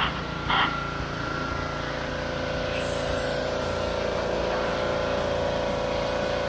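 Gas-engine pressure washer running steadily, with the hiss of its high-pressure jet spraying the boat's stern drive. A couple of short louder bursts come in the first second, and the engine note grows a little louder after about two seconds.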